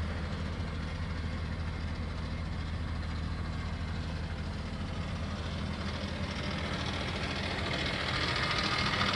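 Ford F-550 bucket truck's engine idling steadily, heard from inside the cab.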